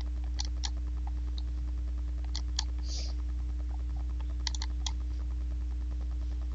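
A few scattered light clicks of a computer keyboard, in small groups, over a steady low hum.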